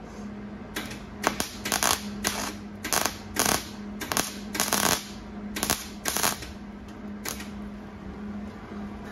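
MIG welder laying a string of short tack welds on thin old sheet steel of a car hood: about a dozen brief bursts of arc, stopping a couple of seconds before the end, over a steady low hum.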